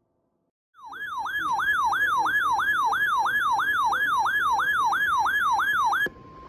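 Electronic siren-style alert tone warbling rapidly up and down, about three sweeps a second. It starts about a second in and at the end breaks into a brief, quieter steady tone. It announces a broadcast severe thunderstorm warning.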